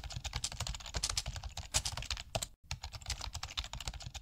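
Fast computer-keyboard typing, a dense run of keystroke clicks with one brief break about two and a half seconds in.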